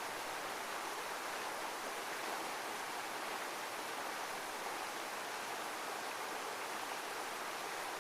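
Heavy waterfall: a steady, even rush of running water with no rise and fall.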